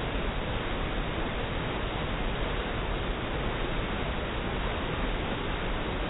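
Steady rushing of a small waterfall, water pouring over a rock ledge into churning white water, with no change in level.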